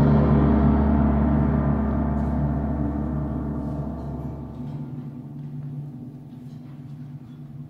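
A gong struck at the close of a loud brass chord, ringing on and slowly dying away, over a low sustained tone that cuts off about four and a half seconds in.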